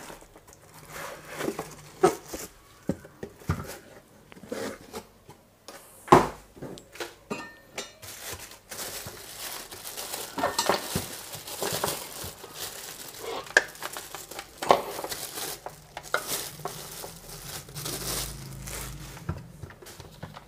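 Clear plastic packing bag crinkling and rustling as a small kitchen appliance is lifted out of a cardboard box and unwrapped. Scattered sharp knocks and clicks of hard plastic are handled throughout, and the crinkling grows denser from about halfway in.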